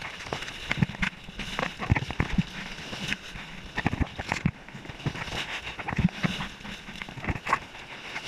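Water splashing against an action camera held at the surface while a bodyboarder paddles out through shallow whitewater: irregular sharp splashes, a loud one every second or so, over a steady hiss of foam.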